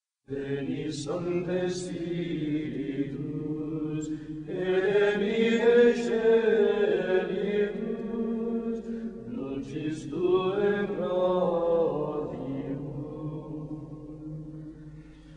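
Sung Latin chant in plainchant style: long, slowly moving vocal phrases that start suddenly out of silence, pause briefly about two-thirds of the way through, then resume and fade out near the end.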